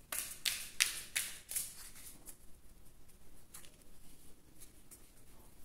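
A deck of oracle cards being shuffled by hand, the cards sliding and slapping against each other in a quick run of soft swishes over the first two seconds or so, then fainter, sparser ones.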